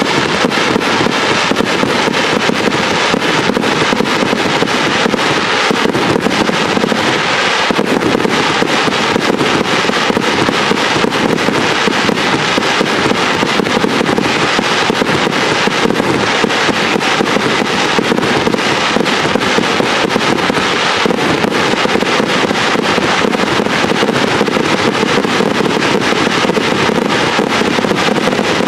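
Fireworks display: dense, continuous crackling and popping from glittering crackle-star shells and ground fountains, many small reports packed closely together.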